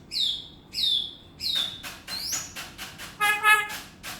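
Hill myna calling. It gives three short whistles in the first two seconds, each gliding down in pitch, then a run of clicks and rasping notes, and about three seconds in a pitched call held for about half a second.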